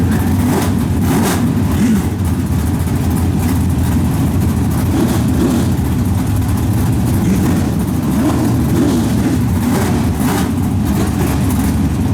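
Several Pro Stock dirt-track race car engines rumbling at low speed with a few brief blips of throttle.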